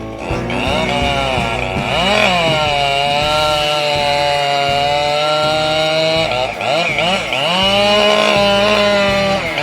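Two-stroke chainsaw running at high revs while cutting wood. Its pitch sags and recovers about two seconds in and again around six to seven seconds in, as the saw takes load and frees up.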